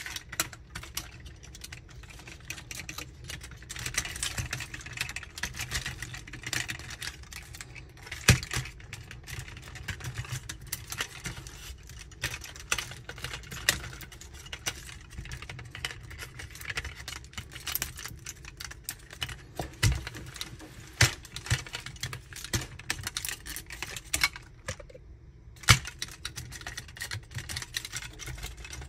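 Plastic parts of a Magic Square MS-02 Light of Peace transforming robot figure clicking and knocking as hands transform it: a steady run of small clicks with a few louder, sharper clicks.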